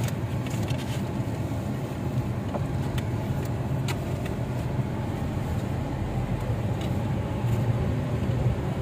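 Steady low hum of a car's engine and road noise heard from inside the cabin while riding, with a few faint clicks.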